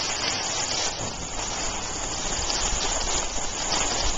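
Steady hiss of skis sliding over groomed snow, mixed with wind rushing over the microphone, growing slightly louder.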